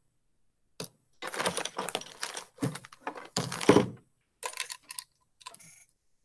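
Typing on a computer keyboard: rapid runs of key clicks, densest in the first half, thinning to a few scattered clicks near the end.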